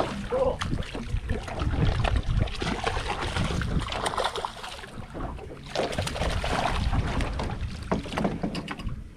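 Water splashing and sloshing beside a boat hull as a hooked blue runner thrashes at the surface, with wind rumbling on the microphone.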